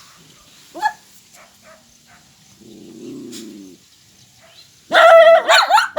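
Dogs howling: a brief rising yelp about a second in, a low growl in the middle, then loud howls with a wavering pitch from about five seconds in.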